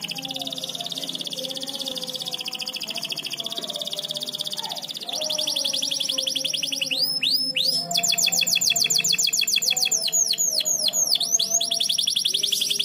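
Domestic canary singing: long, high, rapid trills that alternate with runs of quick downward-sweeping whistles, the song growing louder and busier about five seconds in.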